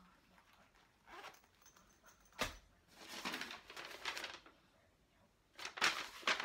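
Handling sounds: a small zippered pouch is zipped and put down with a knock, then a folded sheet of paper rustles as it is unfolded, loudest near the end.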